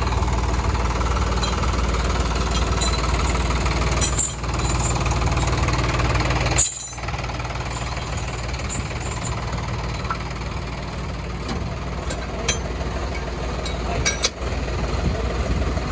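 Tractor diesel engine running steadily, with a deep, continuous drone. The sound briefly drops out three times.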